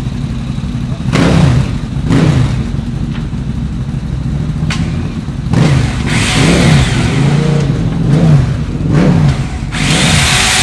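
Classic racing motorcycle engine running and being revved: two short throttle blips in the first couple of seconds, a run of rising and falling revs from about halfway, then held at higher revs near the end.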